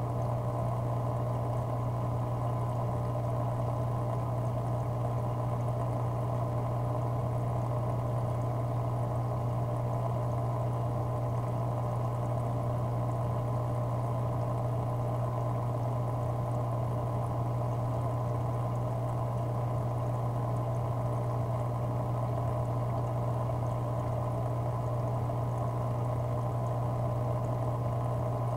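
Aquarium pump running with a steady low hum, alongside continuous water bubbling and trickling.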